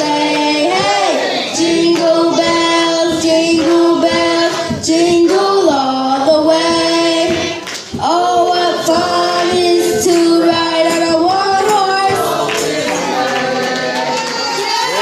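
A group of children singing a Christmas song together over instrumental backing, with long held notes.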